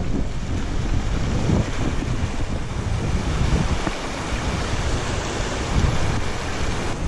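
Wind rushing over the microphone of a mountain bike descending at speed, with the tyres splashing through a shallow stream and rattling over loose stones.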